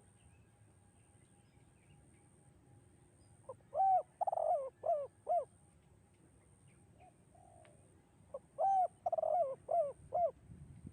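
Spotted dove (tekukur) cooing: two song phrases of several short, low, pitched coos each, a few seconds apart.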